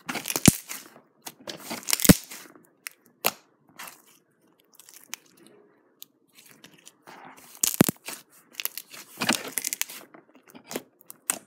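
Thick white milk slime being kneaded and stretched by hand, crackling and giving off several sharp pops, with a quieter stretch in the middle.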